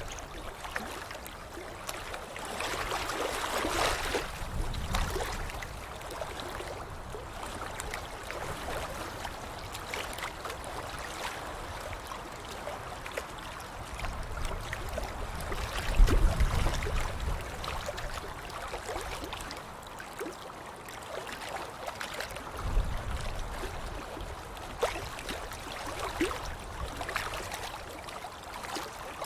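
Water splashing continuously, scattered with small splashes. Heavier splashes come about four seconds in, near the middle (the loudest) and again about three quarters of the way through.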